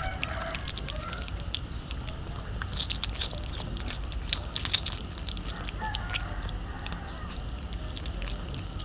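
A calico cat eating raw fish close to the microphone: chewing and biting, heard as many small, irregular clicks.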